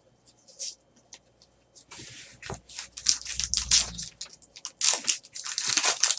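A hockey card pack being torn open and handled: the wrapper crinkles and tears, and the cards slide and scrape against each other. It is sparse at first and gets busier from about two seconds in.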